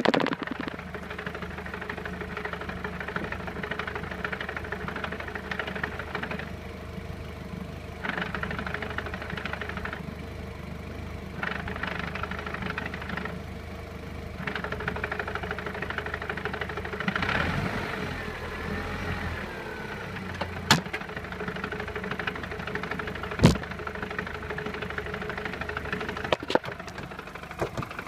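Audi TT engine idling with a rattling noise that appeared after a new clutch was fitted. The rattle drops out and returns several times, and a few sharp clicks sound in the second half.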